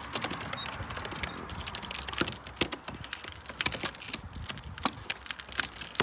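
Racing pigeons pecking grain from an open hand and the ground, a quick, irregular scatter of sharp taps.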